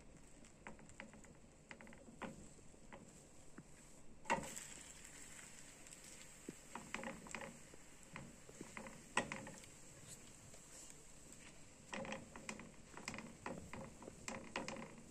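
Spatula scraping and tapping against a metal frying pan while loosening and lifting a thin egg pancake: a scatter of light clicks and scrapes, with sharper knocks about four and nine seconds in and a busier run of scraping near the end.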